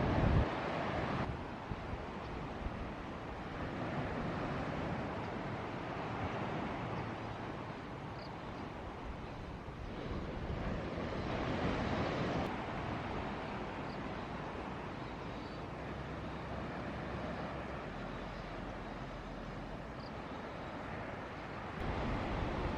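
Ocean surf: waves breaking and washing in, swelling and easing every few seconds, with wind buffeting the microphone. The level drops suddenly about a second in.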